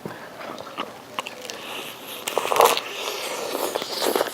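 Close-up chewing and biting into a taco, irregular crunching and crackling mouth sounds, loudest about two and a half seconds in.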